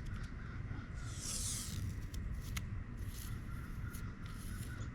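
Handling noises from working on the outboard's water-pump parts: a scraping swish about a second in, a sharp click, then a few shorter scrapes, over a steady low rumble.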